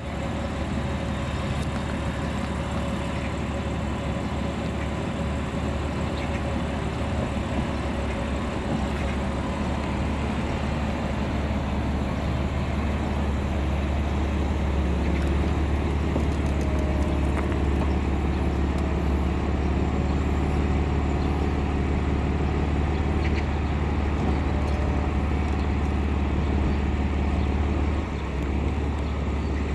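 BMW M4 Convertible's three-piece retractable hard top folding open into the boot: a steady low hum from the roof's hydraulic pump and motors, with scattered light clicks. It gets louder about halfway through and drops off suddenly near the end as the roof finishes stowing.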